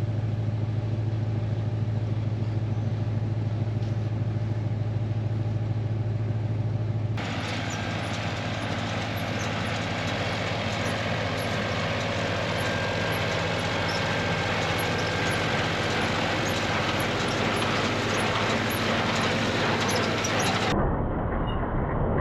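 Ford F-250 pickup truck running, at first a steady low hum, then changing abruptly about seven seconds in to a rougher, noisier driving sound, with another abrupt change near the end.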